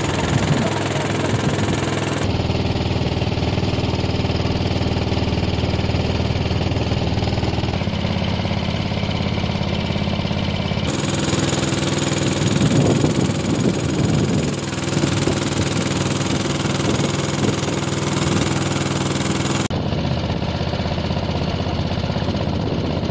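Small boat's engine running steadily under way. Its tone shifts abruptly a few times.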